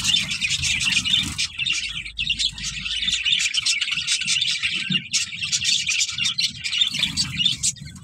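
A flock of Java sparrows in an aviary chirping rapidly and continuously, many short overlapping calls.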